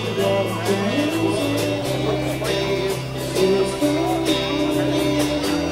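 Acoustic guitar strummed in a live acoustic rock performance, with a man singing over it.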